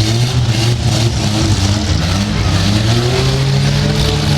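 Pickup truck engines revving in a demolition derby, several at once, their pitch climbing and falling over a steady background of noise.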